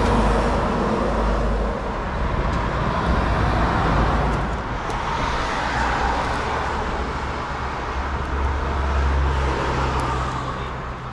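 Road traffic: cars passing on the street, their tyre and engine noise swelling and fading two or three times over a low rumble.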